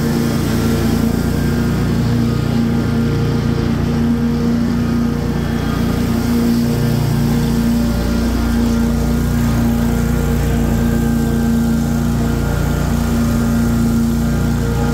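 Commercial lawn mower's engine running steadily while cutting grass, a constant drone that holds one even pitch.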